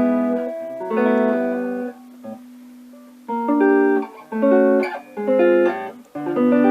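Guitar played through a tube instrument amplifier: a couple of chords left to ring, a held note, then a run of short chopped chords and a final ringing chord. The tone is clean, with no microphonic ringing or chatter, now that the microphonic power tubes have been replaced.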